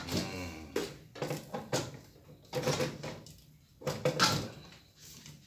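Irregular metal clunks and rattles from a popcorn machine's aluminium pan and stirring arm being handled, a handful of sharp knocks that thin out toward the end.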